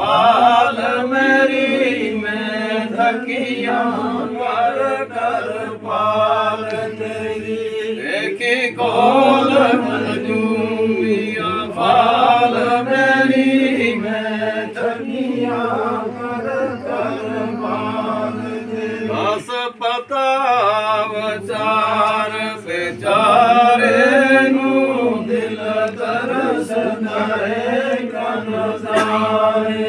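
A group of men chanting zikr, the Sufi devotional repetition of God's remembrance, their voices rising and falling together with only a brief break about twenty seconds in.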